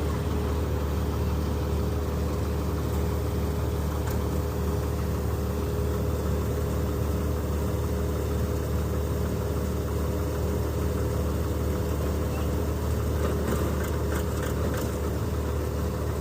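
Malkit 997 combine harvester running steadily, a continuous low engine hum with a steady whine of the machinery above it.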